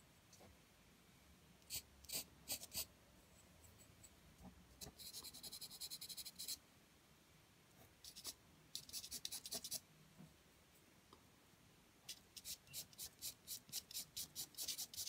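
Pencil point scratching across drawing paper in short bursts of quick back-and-forth strokes, about four or five a second, as shading is laid in.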